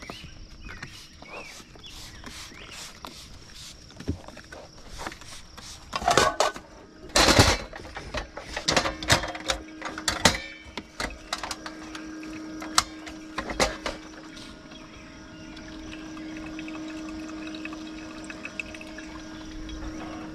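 Trigger-spray bottle of insect repellent spritzed in short hissing bursts, the loudest about six to seven seconds in. This is followed by a run of sharp clicks and knocks as camp gear is handled, with a steady hum coming in about nine seconds in.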